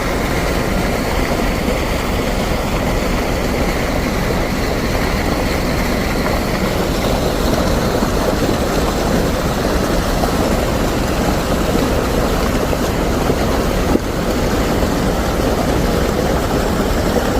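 A vehicle driving at a steady pace: continuous engine and road noise, with a brief dip about 14 seconds in.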